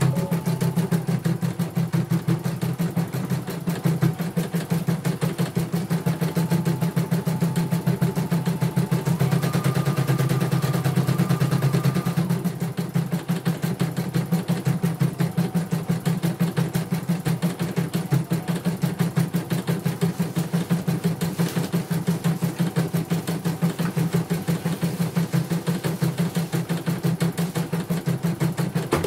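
CNY portable embroidery machine stitching a design: the needle mechanism runs at a fast, even stitch rhythm as the hoop moves the fabric. A faint higher whine comes in the middle, steps up in pitch, then stops.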